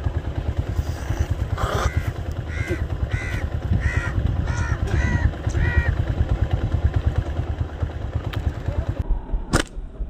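A bird calling about six times in quick succession, over a steady low rumble. A single sharp click near the end.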